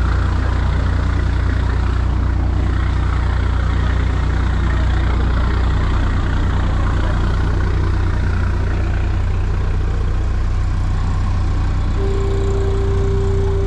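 Generator engine running steadily with a low hum. Near the end, the fog siren sounds one steady tone for about two seconds.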